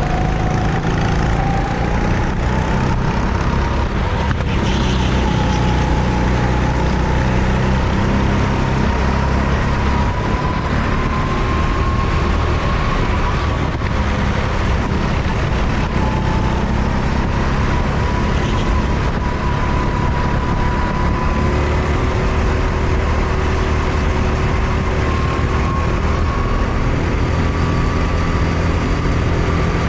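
CRG rental go-kart engine running on track, heard on board, its note slowly rising and falling as the kart speeds up and eases off.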